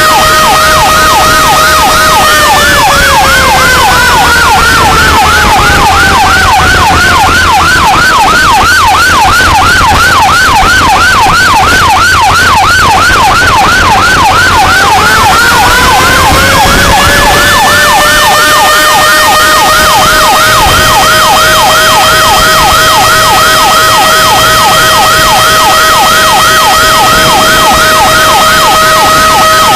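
Fire engine sirens, very loud and close: a yelp sweeping up and down about three or four times a second, layered over a second siren's steady tone that slides down in pitch a few seconds in and climbs back up past the middle. A low engine rumble runs underneath.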